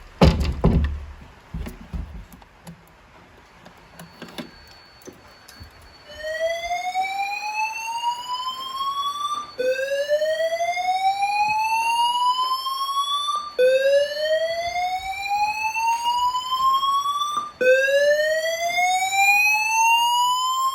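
A loud thump and a few knocks, then the Pertronic F4 voice evacuation system's speakers sound the evacuation tone, set off by a manual call point test. It starts about six seconds in: a slow rising whoop, each sweep about four seconds long, repeated four times.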